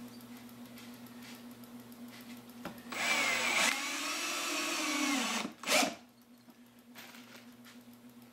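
Cordless drill driving a 2-inch screw through plywood into a 2x4: a motor whine of about two and a half seconds, its pitch sagging as the screw bites and seats, then a brief second burst to snug it home.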